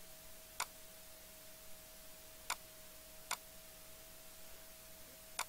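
Four sharp computer mouse clicks at uneven intervals, over a faint steady whine.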